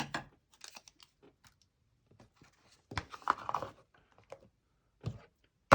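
Small close-up handling noises: scattered light clicks and rustles, a short louder rustle about three seconds in, and one sharp click near the end.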